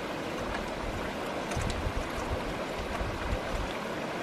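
Steady rush of a stream, with wind buffeting the microphone in low gusts from about halfway through and a few faint clicks of chopsticks in the cooking pot.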